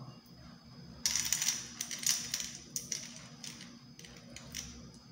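Dried chickpeas dropped by hand into a glass jar of layered grains, clicking and rattling against the glass and the other grains. A dense run of clicks starts about a second in and thins to scattered clicks toward the end.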